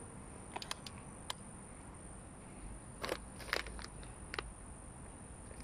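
A few faint, irregular clicks and crunches, the loudest a cluster about three seconds in, over a steady high-pitched hiss.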